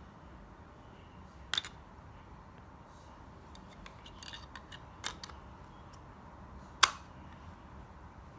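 SuperMag magnetic rods and steel balls clicking together as pieces are snapped on: a sharp click about a second and a half in, a cluster of smaller clicks around four to five seconds, and the loudest snap near seven seconds.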